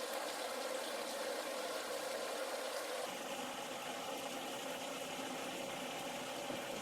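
Steady rush of running water, an even splashing hiss with no change.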